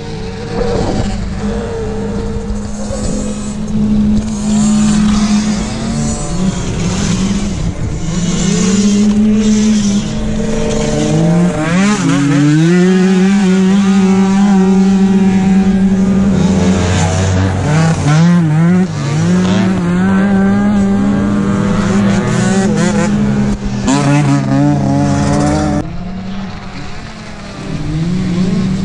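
Several tuned 50cc two-stroke off-road scooters racing, their engines revving and overlapping, pitch rising and falling as they accelerate and ease off. The engines are loudest through the middle and drop back briefly near the end.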